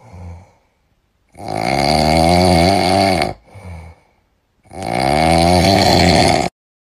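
Snoring sound effect: two long, loud drawn-out snores, each after a shorter, quieter breath, cutting off suddenly near the end.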